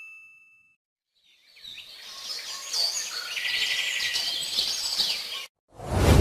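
Birds chirping over a soft outdoor background, starting after a ringing ding dies away and cutting off abruptly; a loud deep boom follows near the end.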